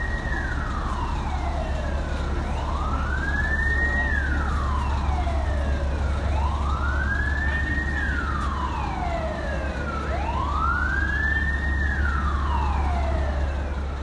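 Emergency vehicle siren on a slow wail, rising and falling about once every four seconds, with fainter falling sweeps between the main ones, over a steady low hum.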